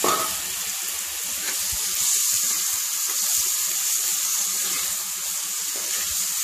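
Chopped tomatoes sizzling in hot oil with sautéed onion and garlic in a kadai, stirred with a steel ladle: a steady frying hiss. A sharp knock of the ladle against the pan right at the start.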